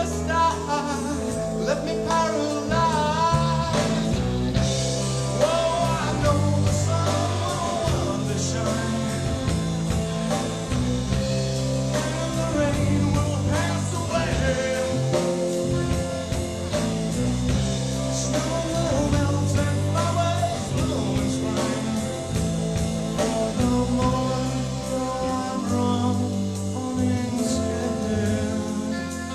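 A band playing a song live with a singer, a bass line of held low notes changing every second or two under the vocals.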